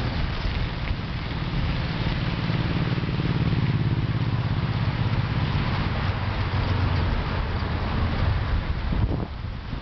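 Wind buffeting the microphone of a camera moving forward along the trail: a steady low rumble under a hiss, dropping off briefly about nine seconds in.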